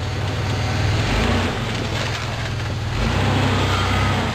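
Engine of a lifted 4x4 SUV running at low revs while rock crawling. Its pitch steps up and down with the throttle a couple of times.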